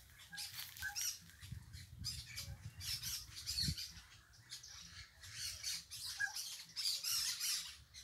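Parakeets (periquitos) calling from the tree canopy: repeated short, harsh, scratchy squawks at irregular intervals, over a faint low rumble.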